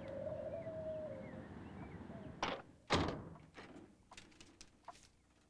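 Two heavy wooden thuds of a door about half a second apart, the second louder and ringing briefly, followed by a few faint light ticks.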